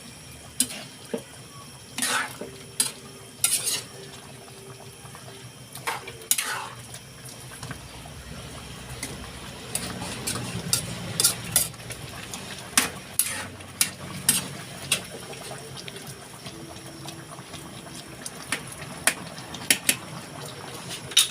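A metal utensil stirring chicken curry with coconut milk in a cooking pot, clinking against the pot's side at irregular intervals. Under it the curry simmers with a low bubbling.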